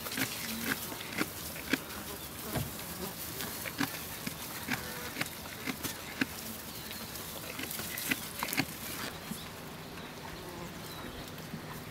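Alpaca feeding from a tub of dry hay: irregular crackling rustles of hay and munching, over a faint steady buzz. The crackling stops about nine seconds in.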